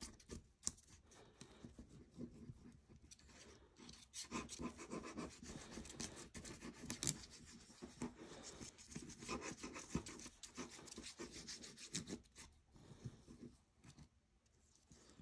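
Faint scraping and rubbing on paper with small irregular clicks, as glue is squeezed out and spread across a paper topper. The sound is busiest from about four seconds in and thins out near the end.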